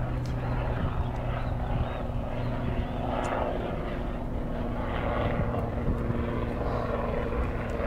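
Aircraft engine droning overhead, a steady low hum that holds throughout.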